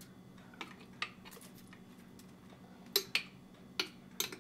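A metal spoon clinking against the rim of a glass jar, about six sharp clinks, as apple pie filling is tipped out past it. A faint steady hum runs underneath.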